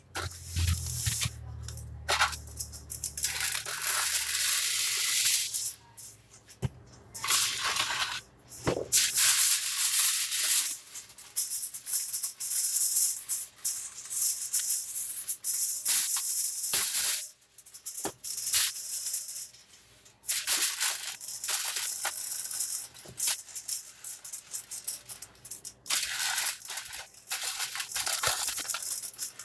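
Plastic bag crinkling and rustling as it is handled, in irregular bursts with a few brief pauses.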